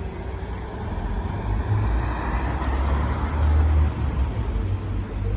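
Street traffic: a motor vehicle passing, its low rumble swelling about halfway through and easing off, while the last tones of the church bells die away at the very start.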